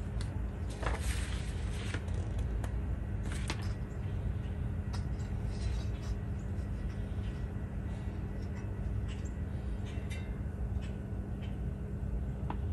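Paper instruction sheets rustling and crinkling as they are unfolded and handled, loudest about a second in and again a few seconds later, then lighter crackles. Under it runs a steady low hum.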